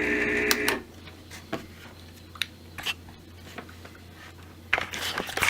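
Protea Romanza espresso machine's pump running as a steady loud hum while a shot is pulled, then cutting off under a second in. Scattered small clicks and taps follow, with a cluster of louder clicks near the end.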